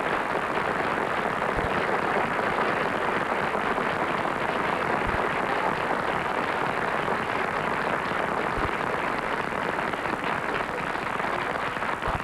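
Studio audience applauding after a song, a long steady round that eases off a little near the end.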